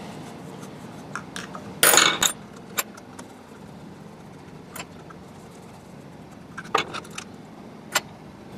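Light metallic clinks and taps from hand tools and a small nut being handled on a workbench, with a short louder clatter about two seconds in, as the nut holding a motor's plastic cooling fan is taken off.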